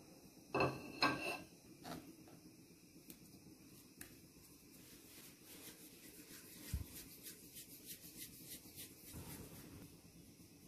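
Hands pinching off and rolling soft dough into small balls over a marble board: faint rubbing and light patting, with two sharper knocks about half a second and a second in.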